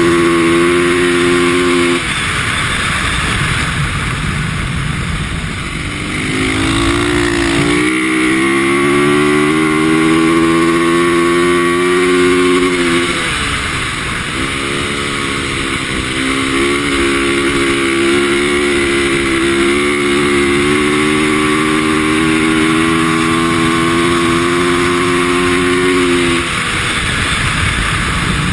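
A 450cc single-cylinder four-stroke dirt bike engine running hard at high revs. It backs off a few times, about two, six, fourteen and twenty-six seconds in, and climbs back up after the dips at six and fourteen seconds, with a steady hiss of wind behind it.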